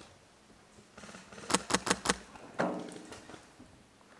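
Airsoft gun firing four quick shots about a second and a half in, each a sharp snap, all within about half a second.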